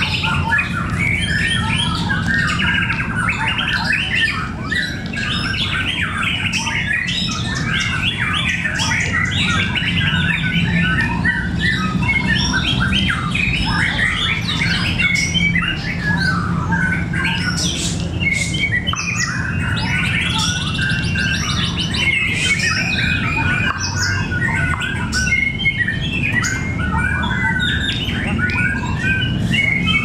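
Many caged white-rumped shamas singing at once: a dense, continuous chorus of quick, overlapping whistled phrases and notes.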